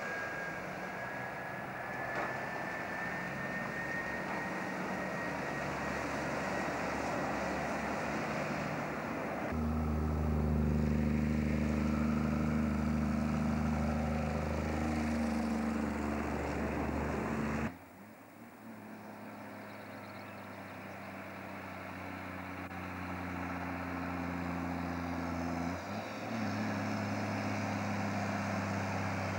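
Heavy diesel truck engines running under load on a hill road, a steady engine note that changes abruptly twice as one truck gives way to another, with a brief drop in level at the second change. A thin whine rises slowly over the first several seconds.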